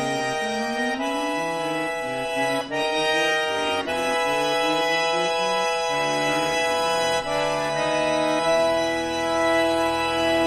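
Bayan (Russian chromatic button accordion) playing dissonant high cluster chords, held and re-struck about every second, over a lower line of quick moving notes. Near the end the chords are held and swell louder.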